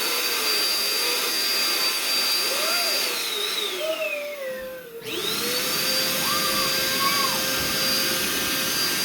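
Shark vacuum cleaner running with a steady high motor whine. About three seconds in, the whine winds down in pitch and the sound dips, then it spins back up around five seconds in and runs steadily again.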